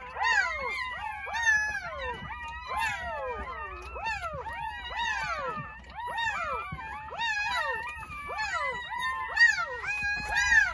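Newborn Jindo puppies crying: many high, whining squeals overlapping from several pups at once, each call arching up and falling away in pitch.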